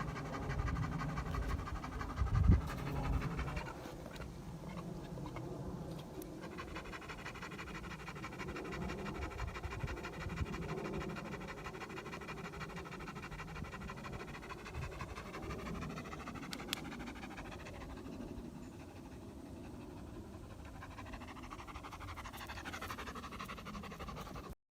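An animal panting steadily.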